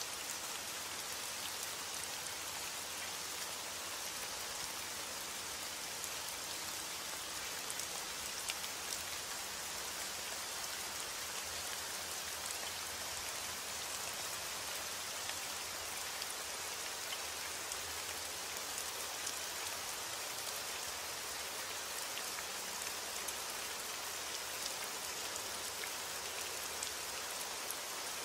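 Steady rain: an even hiss with scattered faint drop ticks, unchanging throughout.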